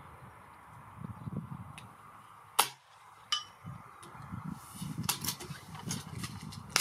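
A .177 Reximex Throne Gen-2 PCP air rifle firing once, a sharp crack, followed about three-quarters of a second later by a second, fainter sharp sound, and another near the end. Wind rumbles on the microphone throughout.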